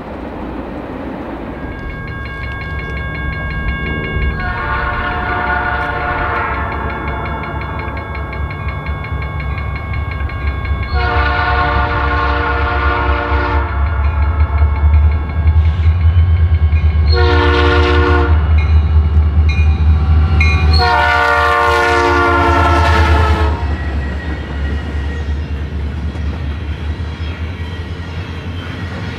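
Locomotive air horn blowing the grade-crossing signal, long, long, short, long, over the rumble of a train that grows louder, passes, and fades after the last blast.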